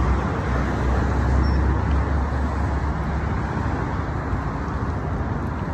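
Road traffic noise: a steady hiss and low rumble of passing cars.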